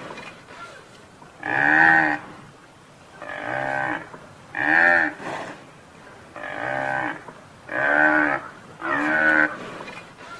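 Buffalo calling: a run of about six short moo-like bellows, each under a second long, rising and then falling in pitch.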